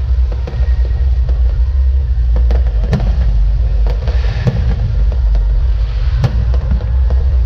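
Aerial firework shells bursting: a string of sharp bangs and crackles, the strongest about three seconds in and again a little after six seconds, over a steady low rumble.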